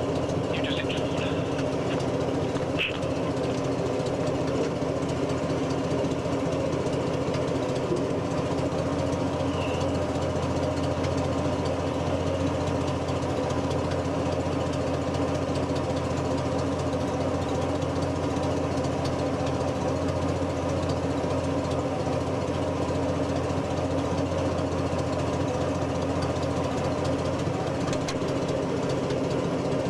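Daimler Ferret scout car's Rolls-Royce six-cylinder petrol engine running steadily at an even pitch, with no revving.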